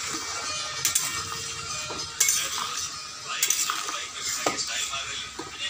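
Metal spatula stirring and scraping through boiling curry in a steel kadai, with several sharp clinks against the pan.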